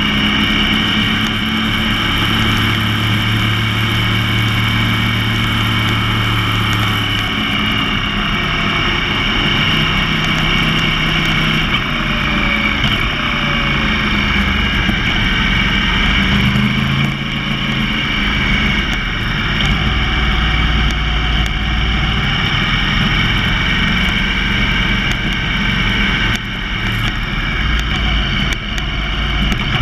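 Yamaha R1's crossplane inline-four engine running at fairly steady revs, heard from a camera mounted on the bike; the pitch holds and then shifts in steps rather than sweeping, with brief dips in level about 17 and 26 seconds in.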